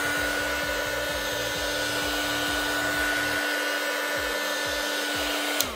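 Handheld hot-air blower running steadily, a motor hum under a broad rush of air, heating the phone's back glass to set its adhesive; it is switched off near the end and winds down, falling in pitch.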